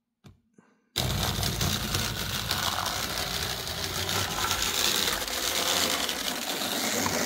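Self-powered truck of an HO-scale model locomotive, weighted with two weights on the back, running along the track: its small electric motor and worm-gear drive give a steady mechanical whir. The whir starts abruptly about a second in, after near silence.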